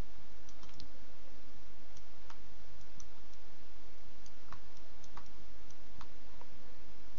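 About a dozen irregular clicks from a computer mouse and keyboard during 3D modelling software work, over a steady background hiss and low hum.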